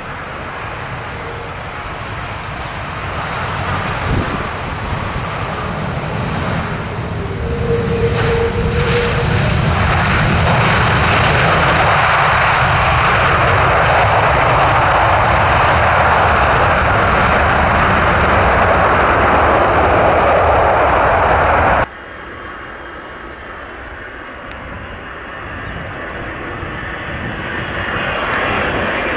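Jet airliner engines passing low overhead, the rushing noise building over about ten seconds to a loud, steady peak. About three-quarters of the way through the sound cuts off abruptly to a quieter jet noise that swells again near the end.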